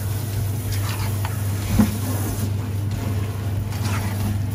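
A silicone spatula stirring thick risotto with grated parmesan in a pot, with soft scraping and one light knock against the pot about two seconds in, over a steady low mechanical hum.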